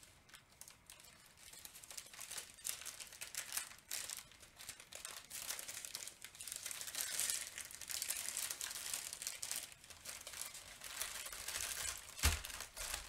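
Small plastic bags of diamond-painting drills crinkling and rustling as they are handled, with one sharp thump near the end.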